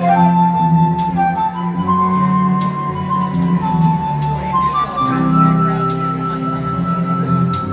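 Live band playing a slow instrumental passage: a flute-sounding lead holds long melody notes over bass and sustained chords, with light cymbal ticks.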